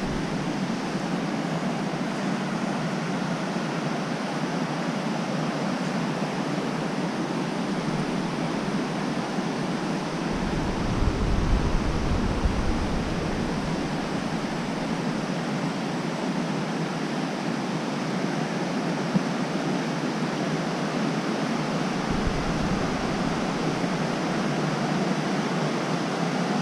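Waterfall, a steady rushing of falling water. A deeper low rumble joins in about ten seconds in and again near the end.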